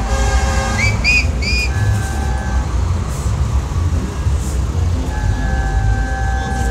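Low rumble of heavy street traffic, with trucks and minibuses running in a jam. About a second in come three short whistles, each rising and falling in pitch, and later a faint steady tone.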